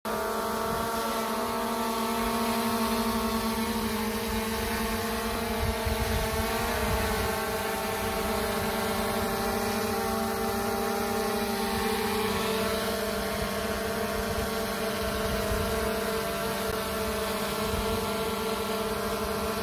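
DJI Air 2S quadcopter hovering close by, its four propellers giving a steady buzzing whine with a few slight shifts in pitch as it holds position.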